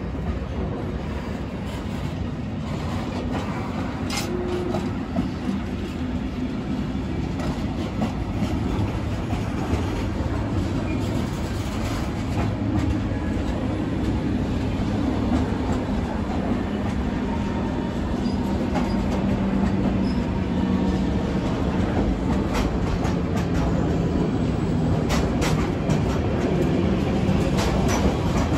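Intermodal freight train passing, its wagons loaded with truck trailers and containers rumbling steadily by. Wheels click now and then over rail joints, with a faint wheel squeal in places.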